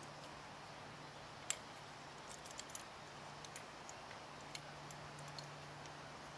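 Faint small metallic clicks and ticks as fencing wire is threaded through and handled in a drop pin wire strainer's spool, with one sharper click about a second and a half in. A low steady hum runs underneath.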